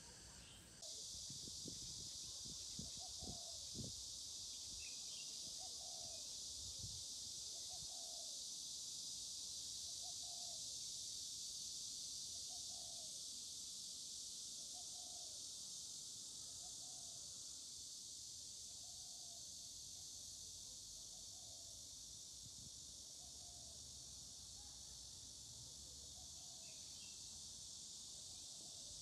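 Steady, high-pitched chorus of summer insects with a bird's soft call repeated about once a second through the middle of the stretch.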